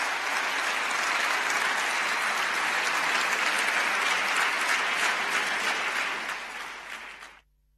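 Audience applauding, fading over the last second or so and then cutting off suddenly.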